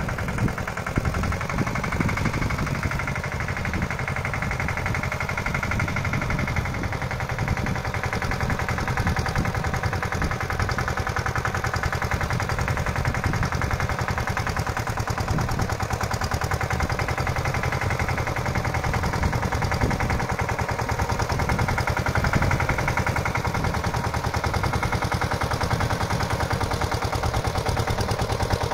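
Lombardini LDA96 single-cylinder air-cooled diesel of a Pasquali 946 tractor running steadily while the tractor works across plowed ground, a rapid, even chugging of exhaust pulses.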